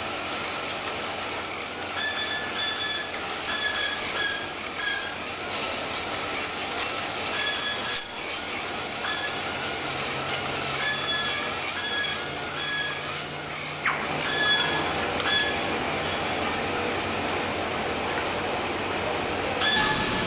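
Tyre repair machinery running: a steady high, wavering whine over a noisy hum, with short squeaky tones that come and go in groups.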